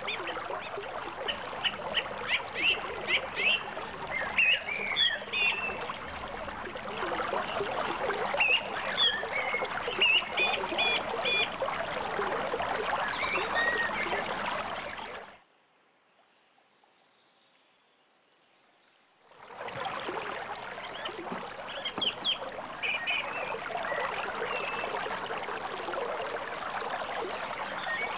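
Creek water flowing with a steady rush, with songbirds calling over it in short chirps and whistled phrases. About halfway through, the sound cuts out to near silence for some four seconds, then returns.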